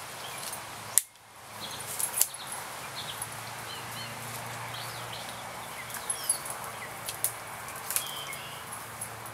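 Outdoor ambience with small birds chirping in short calls, broken by several sharp clicks; the loudest click comes about a second in and is followed by a brief drop-out.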